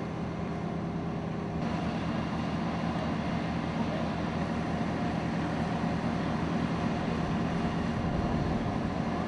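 Vehicle engines idling, a steady low hum with a hiss over it that grows a little brighter about one and a half seconds in.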